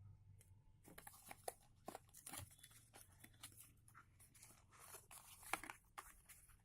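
Faint crinkling and tearing of product packaging being opened by hand: a quick, irregular run of small crackles and clicks that starts about a second in.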